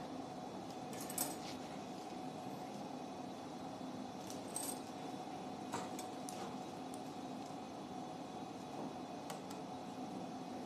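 Steady operating-room hum with a few faint, scattered clicks and clinks of metal surgical instruments.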